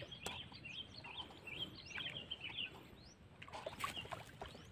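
Small birds chirping: a rapid run of short, high calls through the first half, with scattered chirps and a few faint clicks later.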